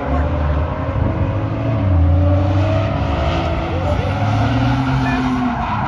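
Car engine revving hard and running at high revs as a car is driven around a coned-off track, the pitch rising and shifting as it goes.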